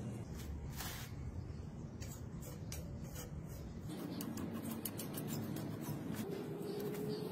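Soft handling noise of wet clay being scooped and smeared by hand over a wire-wrapped steel blade, with scattered small clicks that grow busier about halfway through.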